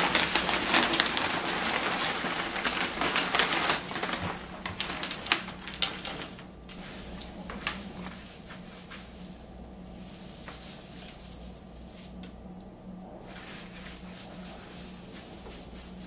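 Dried Chinese bush clover stalks and their plastic pouch rustling and crackling as they are handled. The sound is loudest and densest in the first four seconds, thins to scattered crackles, and after about eight seconds leaves only a low steady hum.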